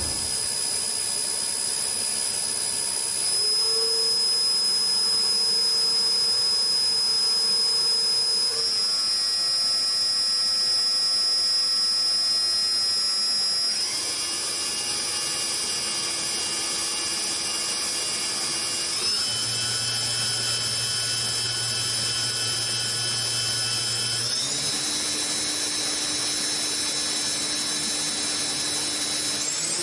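Spindle of a DMG DMU 100 monoBLOCK five-axis machining center free-running with no workpiece: a steady whine of several tones that steps up in pitch about every five seconds as the spindle speed is raised from 1000 rpm to 10,000 rpm.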